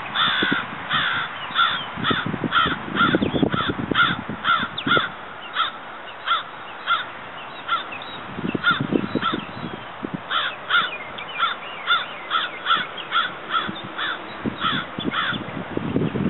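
A sandhill crane chick peeping over and over in short, high, downward-sliding calls at about two a second, falling quiet for a couple of seconds in the middle. Bursts of low rustling sound underneath.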